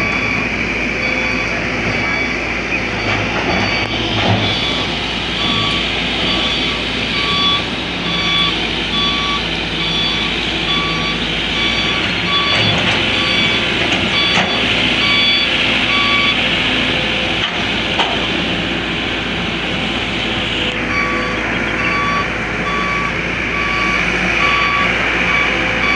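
Kobelco excavator working, its engine running steadily while its warning alarm beeps over and over, a little faster than once a second.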